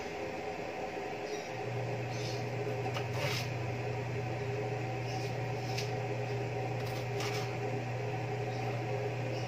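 Covered pot heating on a lit gas stove burner: a steady hiss, a low hum that comes in about a second and a half in, and a few faint ticks.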